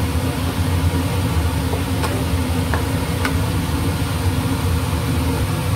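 Eggplant being stir-fried in a nonstick frying pan with a wooden spatula: a few sharp clicks of the spatula against the pan, over a steady low mechanical hum.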